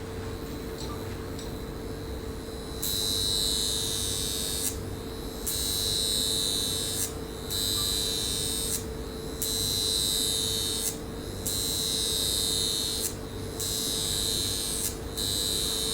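High frequency facial wand buzzing with a high-pitched electric hiss, starting about three seconds in and coming in repeated stretches of one to two seconds with short breaks. A steady hum runs underneath.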